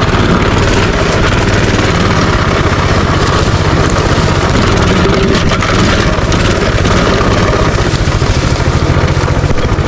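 Minibike's small single-cylinder engine running steadily at low speed, close up and loud.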